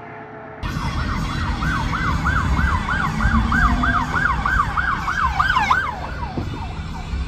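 An emergency vehicle's electronic siren on a fast yelp, about three rises and falls a second, comes in suddenly about half a second in and cuts off near the end. Under it is the low rumble of the car it is heard from.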